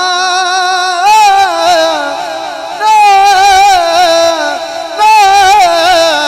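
A man singing a naat through a microphone, drawing one syllable out into long held notes with wavering ornaments, in four phrases, each taken up again about every one and a half to two seconds.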